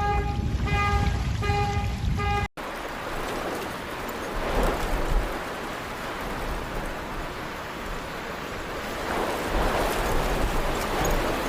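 A vehicle horn honks in repeated short beeps over a low rumble. It cuts off abruptly about two and a half seconds in, and a steady rush of flowing floodwater takes over.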